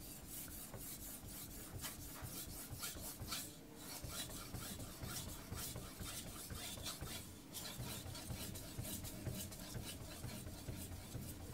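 Aogami carbon-steel knife blade stroked rapidly back and forth across a soaked Kitayama 8000 finishing whetstone: an even run of short, scraping swishes, steel on wet stone.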